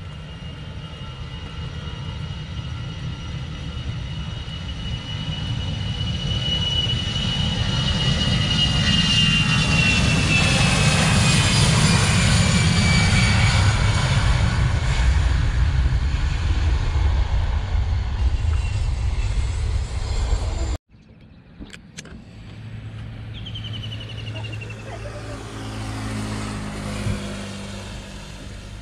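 Jet airliner's engines at takeoff power, the roar building up over several seconds and holding loud, with a high whine that falls in pitch as the aircraft passes. After an abrupt cut about two-thirds of the way in, a quieter engine sound takes over, a motorcycle passing on the airport perimeter road.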